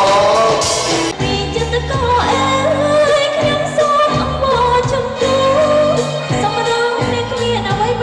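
Loud Khmer dance song, a singer's voice over bass and drums.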